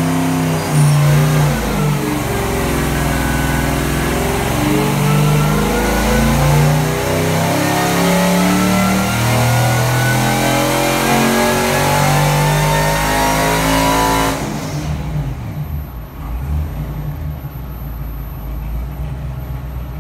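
GM LS3 6.2-litre V8 with a small Whipple supercharger running at wide-open throttle under load on an engine dyno, its pitch climbing steadily through the rev range toward about 6,400 rpm. The pull cuts off suddenly about fourteen seconds in, and the engine drops back to a quieter run.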